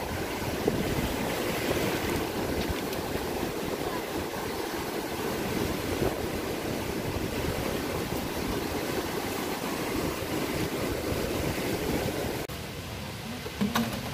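Shallow water splashing and sloshing around wading legs, a steady crackly wash that drops away suddenly about a second and a half before the end.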